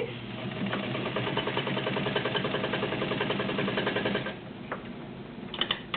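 Vintage Japanese-made all-metal zigzag sewing machine, badged White, running at a steady fast stitching rhythm, then stopping about four seconds in, followed by a single click.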